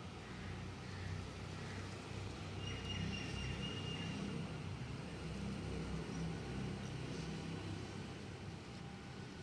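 Low, steady background rumble that swells a little in the middle, with a faint high steady tone lasting about a second and a half, about three seconds in.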